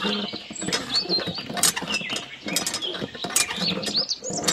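A miniature hand pump's lever being worked up and down by hand, with quick clicks and rattles from its small metal pivot pins and hooks. High bird chirps run behind it.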